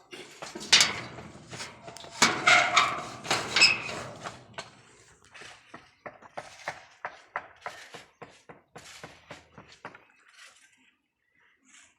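Irregular knocks and clattering of hard objects, loudest and densest in the first four seconds, then thinning to a few knocks a second before stopping about ten seconds in.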